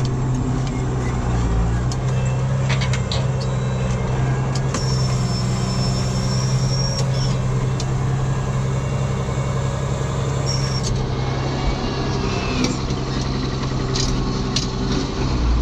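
Ford TW tractor's six-cylinder diesel engine running steadily under a plough while the tractor turns on the headland. A thin high whine sounds for a couple of seconds about five seconds in, along with a few light clicks.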